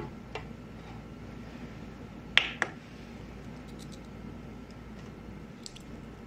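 Kitchen utensils clinking against a glass mixing bowl: two sharp clinks about two and a half seconds in, with a few faint ticks later as a metal spoon drops strained yogurt into the bowl. A steady low hum runs underneath.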